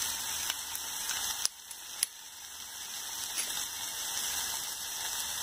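Vegetables frying in a kadhai on a high gas flame, a steady hiss of sizzling. About a second and a half in there is a click, and the sizzle drops off suddenly, then slowly builds back.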